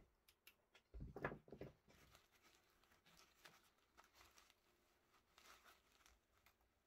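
Faint rustling and scraping of a black nylon knife sheath being handled and folded open, with a few soft knocks about a second in.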